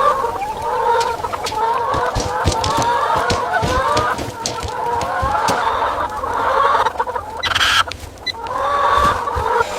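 A large flock of broiler chickens clucking and calling together, many overlapping voices, with scattered low thumps and a short hiss late on.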